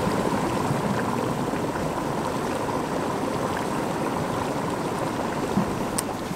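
Volcanic hot-spring pit bubbling and venting, a steady rushing noise.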